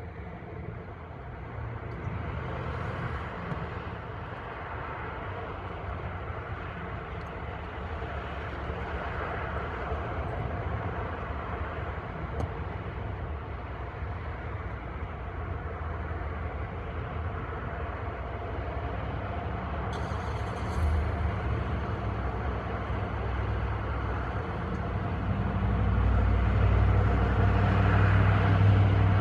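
Outdoor street ambience of road traffic: a steady wash of passing vehicles. A brief sharper sound comes about two-thirds of the way through, and a deeper rumble swells over the last few seconds.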